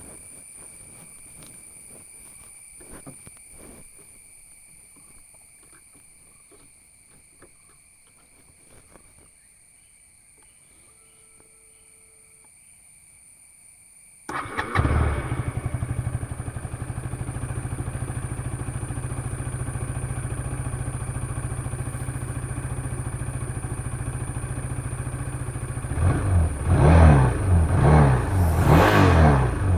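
KTM Duke 250's single-cylinder engine being started after a few faint clicks, catching abruptly about halfway through and settling into a steady idle. Near the end come several quick throttle blips.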